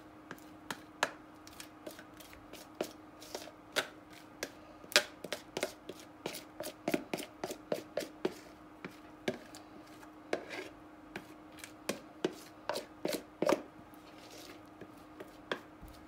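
Irregular light knocks and clicks of kitchen utensils against a batter bowl and cake pan, one to three a second, with a faint steady hum underneath.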